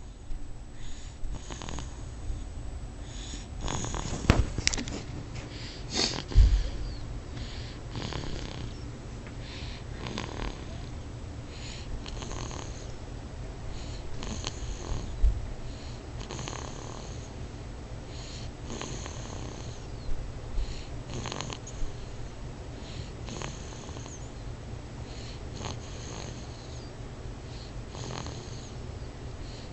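Loud snoring, a breath about every two seconds, with a few sharper, louder noises about four and six seconds in and again near the middle.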